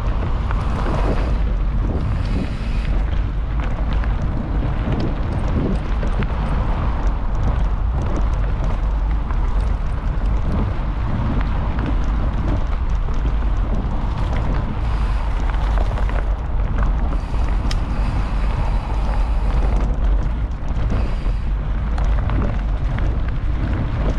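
A mountain bike being ridden over rough ground: heavy wind rumble on the microphone, with tyre noise and frequent small rattles and clicks from the bike.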